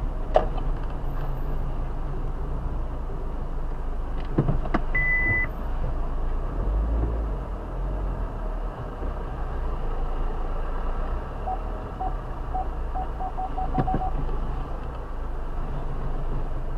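Stopped car with its engine idling: a steady low hum inside the cabin. A single short high electronic beep comes about five seconds in, and a quick run of about ten short beeps around twelve to fourteen seconds in, with a few clicks.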